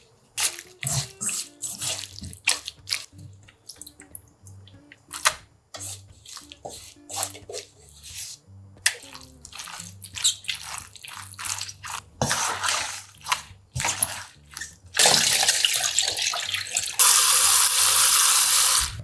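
Wet kitchen handwork: a spatula scraping thick paste into a steel bowl, then gloved hands squishing red kimchi seasoning into napa cabbage leaves in a quick run of squelches and slaps. Near the end, tap water runs hard onto pork ribs in a pot in a steel sink. Quiet background music underneath.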